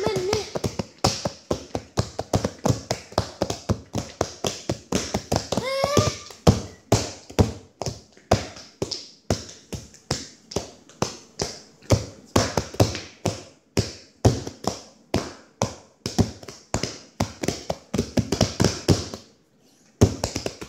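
A hand tapping close to the microphone in a steady rhythm, about three taps a second, with a short break near the end. A child's voice gives a short sliding call at the start and again about six seconds in.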